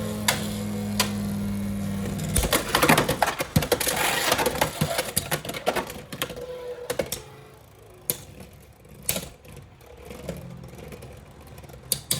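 Beyblade X spinning tops humming steadily as they spin in a plastic stadium. About two and a half seconds in, a hard collision cuts the hum off, followed by a few seconds of rapid rattling clatter of the tops striking and bouncing around the stadium. The rest is scattered lighter plastic clicks.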